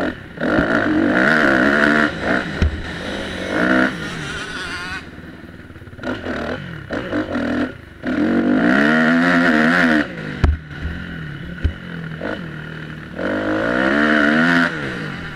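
Motocross bike engine revving hard in four bursts as the throttle is opened, its pitch rising and falling, then dropping back between bursts. Two sharp knocks come a little past the middle.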